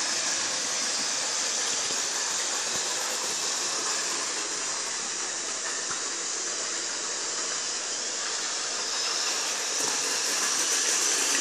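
Electric model train running on its track: a steady whirring hiss from the locomotive's motor and the wagons' wheels rolling on the metal rails, a little louder near the end.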